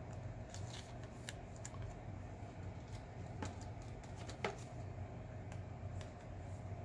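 Baseball cards being handled, with a few faint, scattered clicks and rustles from the cards over a low steady hum.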